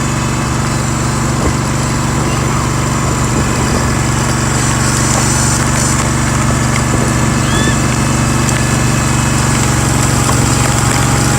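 Cub Cadet garden tractor engine running steadily under load, slightly louder toward the end.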